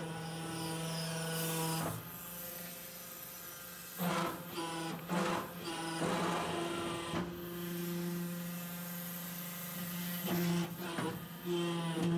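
Hydraulic soil interlocking brick machine running, its motor humming steadily, with several short bursts of mechanical noise about four, five, six and eleven seconds in.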